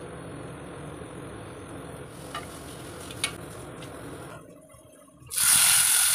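Low, quiet kitchen noise with two light clicks, then about five seconds in a sudden loud sizzle as curry leaves hit hot oil in a frying pan, tempering whole spices for a curry.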